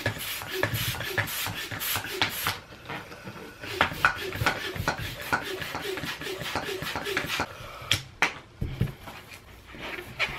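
Hand balloon pump being worked in quick strokes to inflate a latex balloon: a rhythmic puff of air and click with each stroke, about two to three a second. The pumping stops about eight seconds in, with a few knocks, and starts again near the end.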